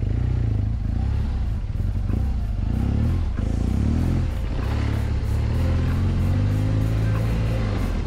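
BMW R1200GS boxer-twin engine running as the motorcycle rides a dirt trail, its revs rising and falling about halfway through, under background music with a steady beat.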